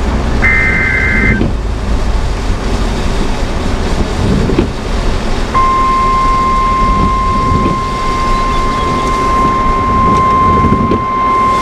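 NOAA Weather Radio alert playing in the vehicle: a short burst of the SAME data header's warbling two-tone chirp about half a second in, then about five and a half seconds in the weather radio's single steady warning alarm tone starts and holds, the signal that a warning message is about to be read. Under it, steady loud in-car noise of wind and rain on the vehicle.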